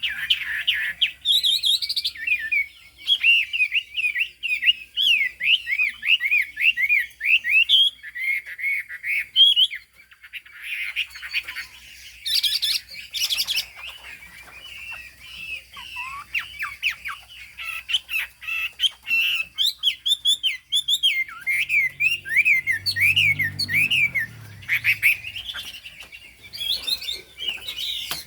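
Chinese hwamei (Garrulax canorus) singing a long run of rapid, loud whistled notes that sweep up and down in pitch, broken by a few short pauses.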